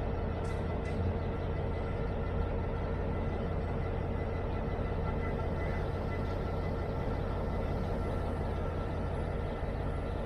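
Diesel freight locomotive engine running steadily at rest, a constant deep hum with a held drone.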